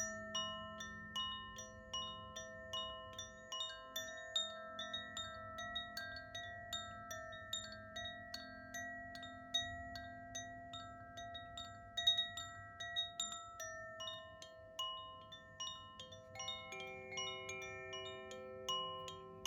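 Terra (earth-element) Koshi chime being swayed so its clapper strikes the tuned metal rods inside its bamboo tube again and again. It gives a steady shower of bright, overlapping ringing notes, a few strikes a second.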